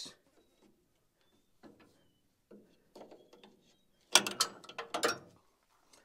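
Wrench working the double locking nuts on a New Holland 317 baler's knotter bolt: faint metal clinks, then a quick run of loud ratcheting clicks about four seconds in.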